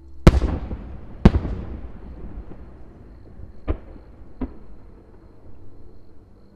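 Aerial fireworks shells bursting: two loud booms about a second apart, each trailing off in a long echoing rumble, then two fainter booms a few seconds later.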